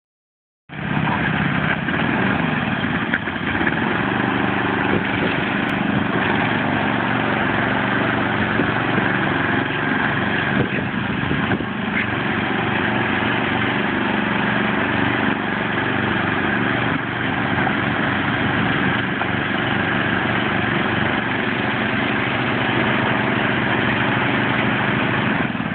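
Ride-on lawn mower engines running steadily. The sound cuts in abruptly just under a second in.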